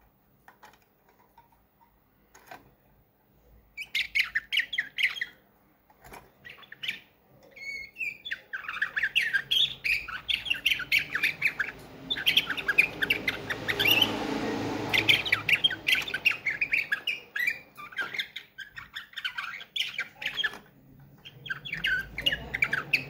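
Slavujar (nightingale-song, bülbül ötümlü) canary singing: a fast run of short clipped notes and trills. It starts about four seconds in after a near-quiet opening, and from about eight seconds it sings almost without pause.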